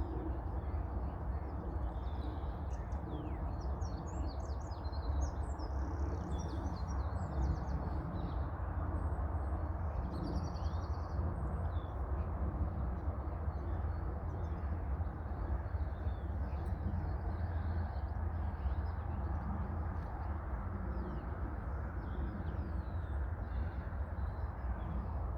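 Small birds chirping and twittering outdoors, many short calls that come thickest in the first half, over a steady low background rumble.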